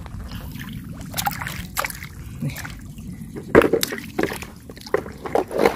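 Hands sloshing and splashing in shallow muddy water while groping through the mud for shellfish, with irregular short splashes, the loudest about three and a half and five and a half seconds in.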